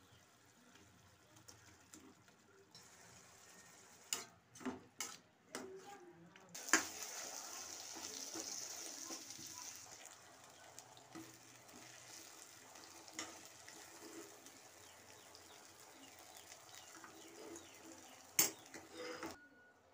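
Vegetables tipped into a stainless steel kadai of hot masala and stirred with a metal spatula. Several clanks of metal on the pan come about four to six seconds in, then a sizzle that fades over a few seconds. After that the spatula scrapes and knocks against the pan, with a sharp knock near the end.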